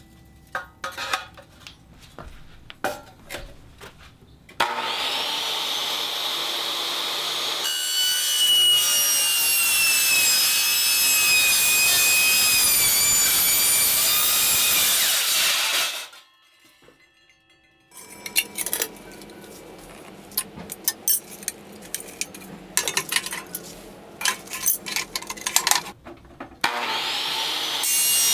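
A power tool spins up with a rising whine about five seconds in, then cuts into the metal wall of an insulated tumbler for about eight seconds, loud and gritty, its pitch sagging under the load, before it stops. Scraping and clicking of the tumbler being handled follow, and the tool spins up again near the end.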